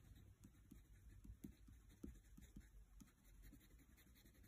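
Faint scratching of a wax crayon on sketchbook paper, colouring in with quick, short, irregular strokes.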